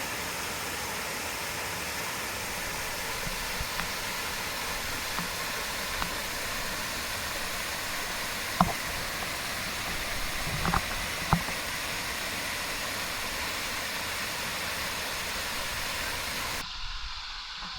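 Steady rush of a waterfall, with a few short knocks in the middle. The rush drops away suddenly near the end.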